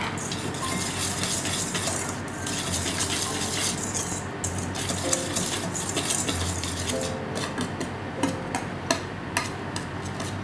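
Wire balloon whisk stirring dry flour and sugar in a stainless steel bowl: a continuous scratchy swishing of the wires through the powder, with light ticks of the wires against the metal bowl that grow sharper and more frequent in the second half.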